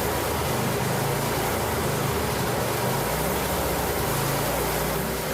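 Single-cylinder Kohler engine of a 1962 Original Cub Cadet garden tractor running steadily.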